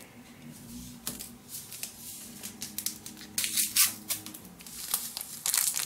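Small paper stevia sweetener sachets being handled and opened: quiet crinkling and rustling of the packets with light clicks, and a couple of louder rustles a little past halfway and near the end.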